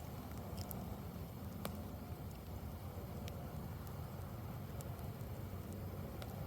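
Campfire burning: scattered sharp crackles and pops of burning wood, about one every second or so, over a steady low rumble.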